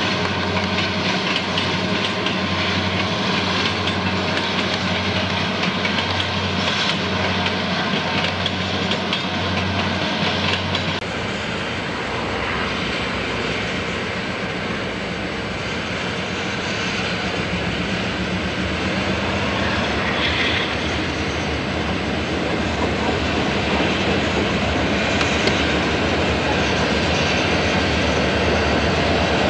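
Diesel-electric locomotives running under power. First a low, pulsing engine drone from a consist passing close by, then, after an abrupt change about eleven seconds in, the broader rumble of a diesel lash-up and its train rolling through the yard, growing slowly louder near the end.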